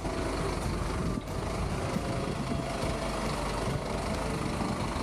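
Diesel engine of a Scania flatbed lorry running steadily.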